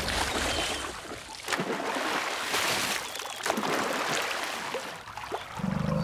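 Wet mud splattering and squelching as elephants fling mud over their bodies and wallow in a muddy pool, with several sudden sloppy slaps. A low steady hum comes in near the end.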